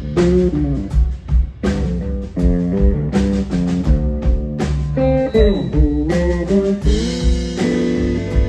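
Live blues-rock band playing during a sound check: electric guitar lines over bass and a drum kit with steady cymbal and snare hits. The guitar notes glide in pitch about five to six seconds in.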